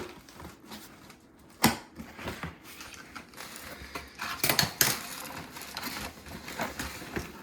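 Cardboard box and packaging being handled and opened: scattered clicks, scrapes and rustling, with a sharp knock near the start and a louder run of scraping a little past the middle.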